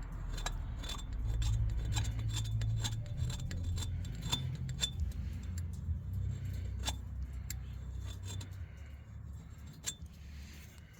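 Small metal parts and hand tools being handled, giving a string of sharp light clicks and clinks that thin out in the last few seconds, over a steady low hum.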